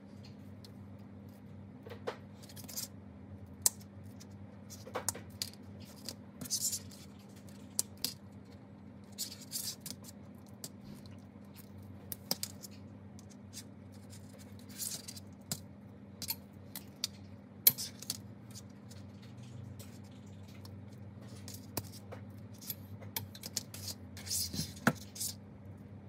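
Hand-held RJ45 crimping tool being worked: scattered clicks, snaps and scrapes of its metal jaws and stripping blade as a network cable is stripped and an 8P8C modular plug crimped, over a steady low hum.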